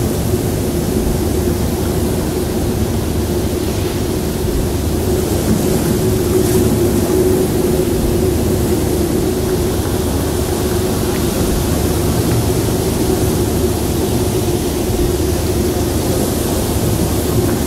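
Ambient drone atmosphere: a steady wash of noise and low rumble under one held tone.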